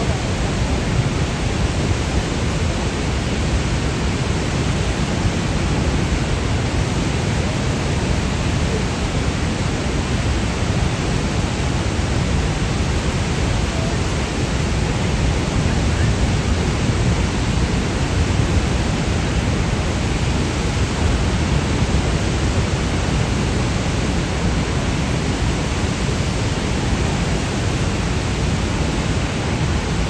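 Steady, loud, unbroken rushing roar of Niagara Falls' water heard up close.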